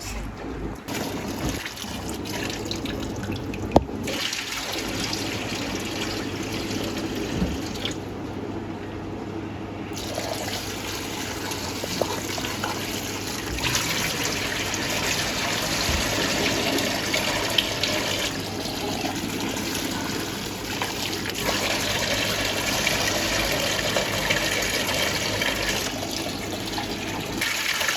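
Tap water running steadily into a bowl as maash (urad) daal is washed before soaking, with a single sharp clink about four seconds in.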